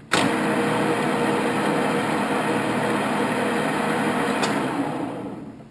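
1941 Cincinnati Bickford Super Service geared-head drill press starting up abruptly and running at 800 rpm, its spindle gearing giving a steady whirring gear noise. A click about four and a half seconds in is followed by the machine winding down as it is shut off.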